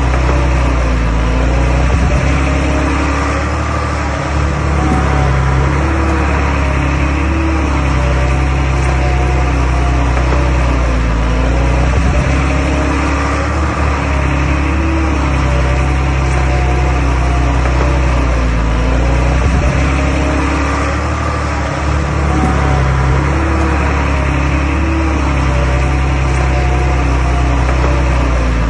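Komatsu D21A bulldozer's diesel engine running steadily while pushing soil, its note rising and falling every few seconds as the load changes.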